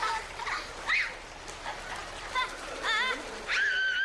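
Children squealing and laughing while splashing in pool water. High-pitched short cries come several times, with a longer held squeal near the end.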